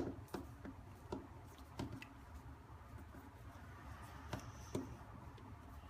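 Small sharp clicks and taps, about eight of them at uneven intervals, as a smartphone's mid frame is pressed and snapped back into the phone's body, over a faint low hum.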